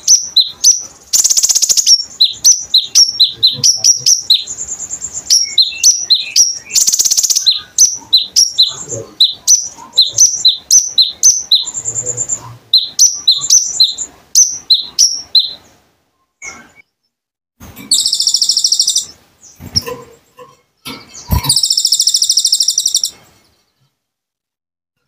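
Olive-backed sunbird (konin) singing loudly: a fast run of sharp, high chirps, about three a second, broken by several buzzy trills about a second long. The song pauses briefly twice in the second half.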